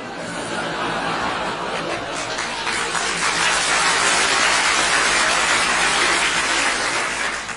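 A large audience laughing together, the laughter building over about three seconds to a loud, full peak, holding, then dropping off suddenly at the end.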